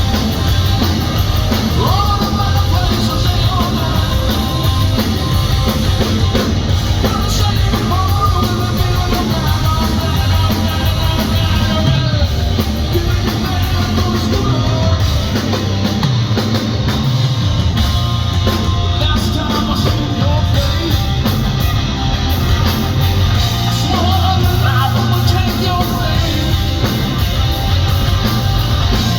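Loud live hard-rock band playing a song, with a male lead voice singing over the band.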